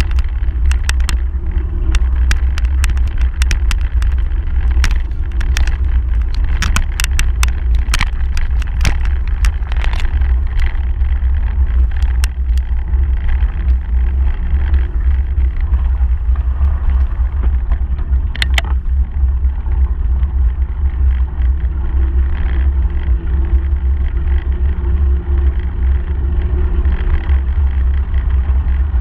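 Wind and riding noise on a bicycle's handlebar-mounted camera: a steady low rumble, with a run of sharp clicks and rattles from the bike and mount over the path in the first twelve seconds or so, and one more about eighteen seconds in.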